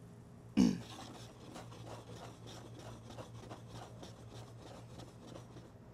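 Wooden spatula stirring bubbling caramel in a frying pan: faint irregular scraping and crackling ticks over a low steady hum. The caramel is just turning colour, near ready. A brief loud sound comes about half a second in.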